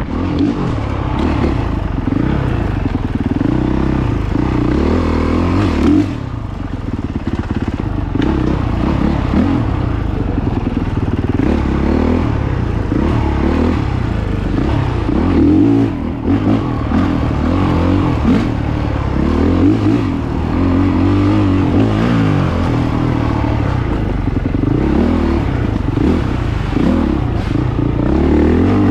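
Dirt bike engine being ridden hard, its revs rising and falling under throttle with brief lifts off the gas about six and sixteen seconds in.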